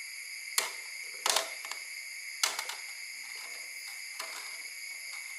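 A kitten batting at a hanging computer mouse: a handful of sharp clicks and knocks at irregular intervals, a short cluster of them between the first and second, over a steady high-pitched drone.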